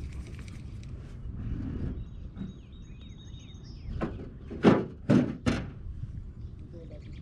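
Three loud thunks in quick succession a little past halfway, over a steady low wind rumble on the microphone, with a bird singing faintly before them.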